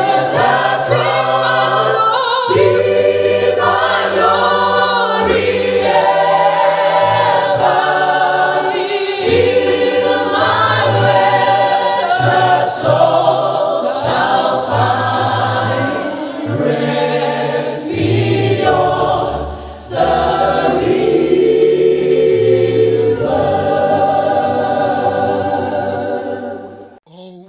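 A choir singing a hymn in several-part harmony, with long held chords, ending just before the close.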